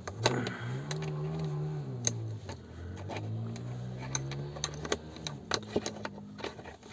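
A thin stiff-wire hook clicking and scraping against the plastic latch of a locked car glove box as it is worked in to press the lock open. Twice a man hums low for a second or two over the clicks.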